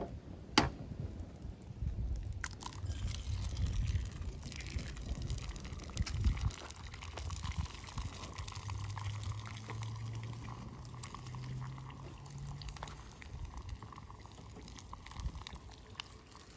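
Egg frying in butter in a small cast iron skillet: a steady sizzle, with a sharp click about half a second in.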